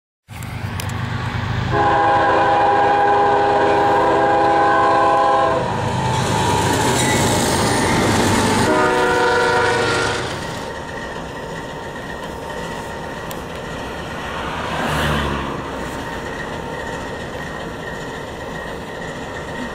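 Union Pacific diesel freight locomotive's air horn sounding a long blast and then a shorter one, followed by the steady rumble and rail noise of the train rolling past.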